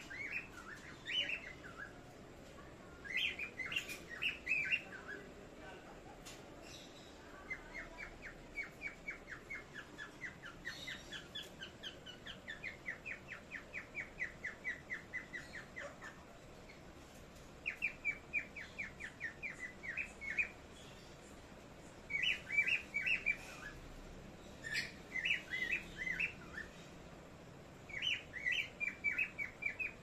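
Small pet parrots chirping: short bursts of calls, and several runs of quick repeated chirps, about five a second, each lasting a few seconds.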